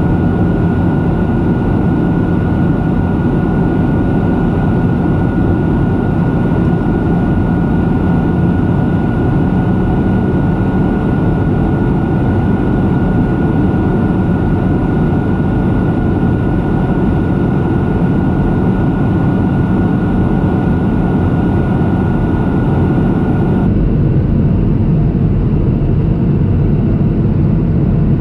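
Boeing 737-800 cabin noise in flight, heard by the over-wing window: the steady rush of its CFM56 turbofan engines and airflow, with a steady high whine and a low hum. About 24 seconds in, the high whine and upper part of the noise cut away suddenly, leaving the low rush.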